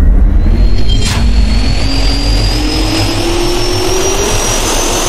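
Jet engine spool-up sound effect: a steady rushing noise with a low rumble under a whine that rises slowly in pitch, with a sharp hit about a second in.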